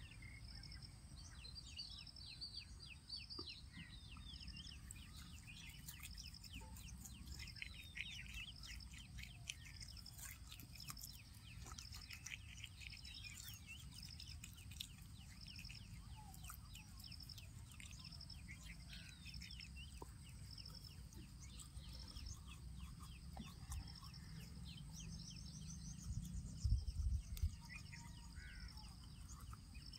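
Birds chirping and calling, with many quick chirps and a high note repeating at an even pace. A few low bumps near the end are the loudest sound.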